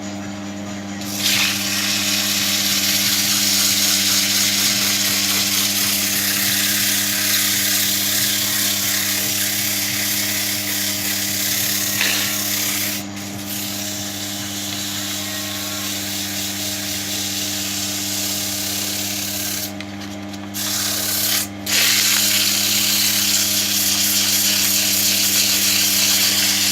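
100-grit sandpaper rasping against a softwood ball spinning on a wood lathe, over the steady hum of the lathe motor and a shop fan. The rasp starts about a second in and drops away briefly twice, once near the middle and once about three quarters through.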